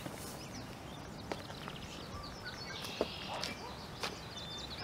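Outdoor ambience of songbirds chirping and calling over a steady low rumble, with a few sharp ticks, the loudest about three seconds in.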